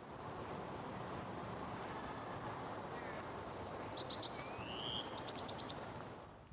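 Outdoor ambience: a steady rushing background noise with small birds chirping over it, a rising whistle about four seconds in and a quick trill of repeated notes near the end. A faint steady high tone runs underneath.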